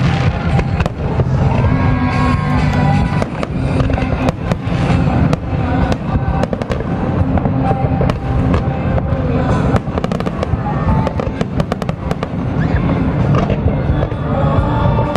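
Aerial fireworks bursting in quick succession, with sharp cracks coming thickest about two-thirds of the way through, over a continuous low rumble, while music plays alongside.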